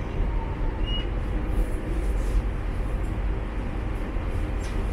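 Steady rumble and rush of a Shanghai Metro Line 10 train running, heard from inside the passenger car.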